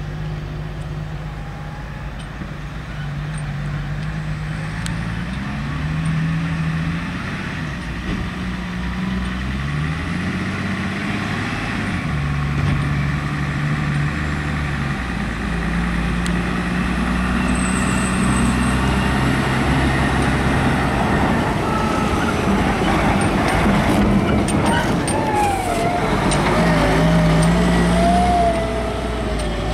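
Heavy diesel engine of a Bell 4206D scraper tractor working under load while pulling a scraper, its pitch stepping up and down with revs and gear changes. In the last few seconds a wavering higher whine rises and falls over it.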